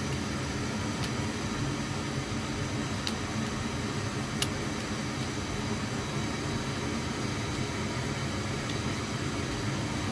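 Steady hum and hiss of hangar background noise, with a few faint sharp clicks of hand tools on metal as a drain plug is torqued.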